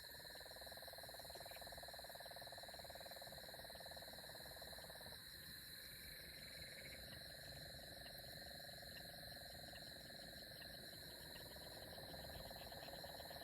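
Faint night chorus of insects holding steady high-pitched drones, with an animal's low, rapidly pulsed trill that runs about five seconds, stops briefly, then starts again.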